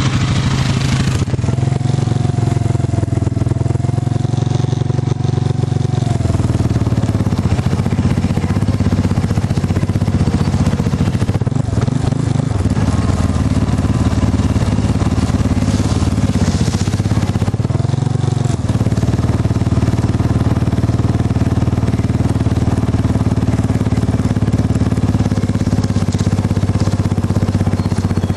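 ATV engine running steadily while riding over rough ground, its pitch wavering briefly about two seconds in and again past the middle.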